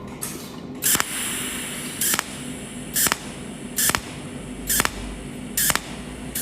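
Cold welding machine firing pulse spot welds: about six sharp snapping cracks, roughly one a second.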